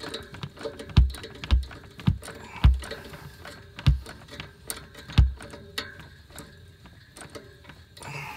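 Pipe wrench working the fittings of a cast-iron steam radiator: irregular metallic clicks and clanks, with six louder knocks in the first five or so seconds and lighter ticks between.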